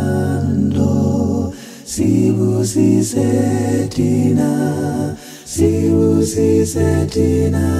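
Unaccompanied group of voices singing a song in harmony, with sustained low bass notes under higher parts. It breaks briefly between phrases twice, about a second and a half in and again a little past five seconds in.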